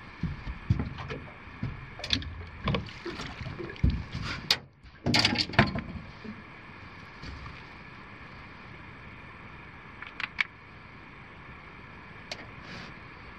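Knocks, thumps and rattling on an aluminium boat's hull and deck as a tailor is landed and handled, busiest in the first six seconds with a few more knocks later. Night insects chirp steadily underneath.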